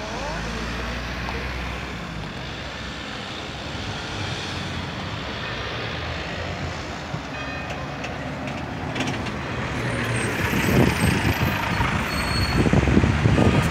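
Scania coach's diesel engine running as the coach drives up and passes close by, growing louder about ten seconds in.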